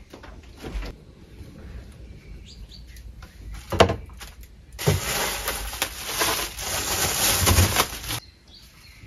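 A knock about four seconds in, then a thin plastic bag crinkling and rustling for about three seconds as it is handled.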